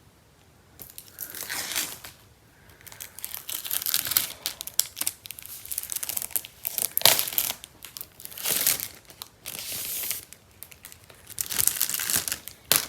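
Product packaging being torn open and crinkled by hand: irregular bursts of ripping and rustling that begin about a second in and keep going, with the sharpest rips about halfway through and near the end.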